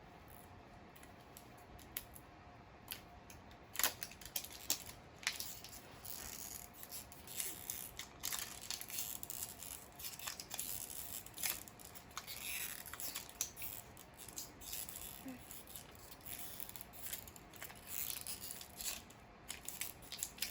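Plastic toy packaging being opened by hand: scattered sharp clicks and snaps, then steady crinkling, rustling and tearing of plastic wrap as the layers of an LOL Surprise doll package are peeled off.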